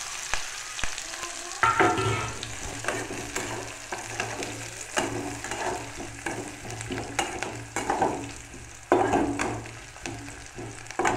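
Sliced onion sizzling in hot oil in an aluminium kadai, stirred with a metal spatula that scrapes and clicks against the pan again and again.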